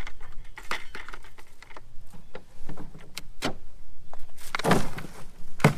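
Black plastic 5-gallon buckets lifted, knocked and set down, and red potatoes handled into a crate: scattered sharp knocks and rattles, with two heavier knocks near the end.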